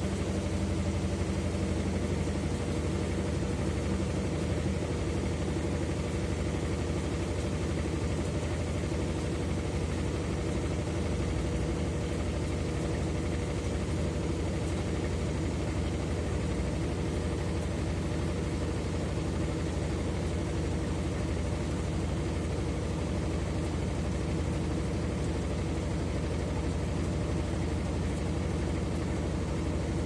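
Consul 13 kg top-load washing machine (CWE13AB) in its spin cycle, the wash basket spinning at speed with a steady low motor hum and whir.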